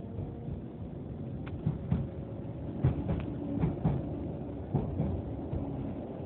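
Interior of a Keihan 600 series electric train running, with a steady low rumble and a faint hum. Irregular short clacks and knocks come from the wheels and car body on the track.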